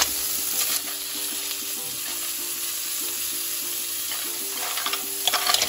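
Hot oil sizzling in a wok as shell-on apple snails are spooned in from a glass bowl, with a short clatter of shells and the metal spatula against the bowl about half a second in and again near the end.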